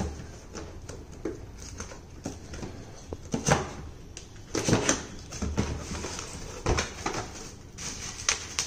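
Cardboard shipping box being opened by hand: flaps pulled open, with irregular scrapes, knocks and rustles of the cardboard, then bubble-wrap packaging rustling near the end.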